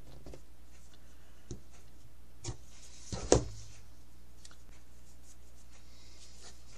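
Hands working paper and washi tape on a tabletop: soft rubbing and rustling with a few light taps, the loudest a little over three seconds in.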